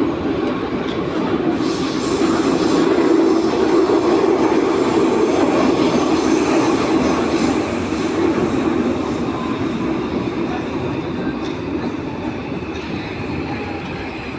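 Santiago Metro AS-02 train running between stations on steel wheels, heard from inside the car: a steady rumble of wheels on rail and running gear, with some wheel squeal, that swells about two seconds in and gradually quietens in the second half.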